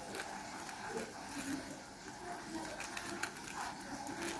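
Knife cutting through the crisp breadcrumb-and-sesame crust of a fried chicken-and-potato finger: an irregular run of crackling crunches.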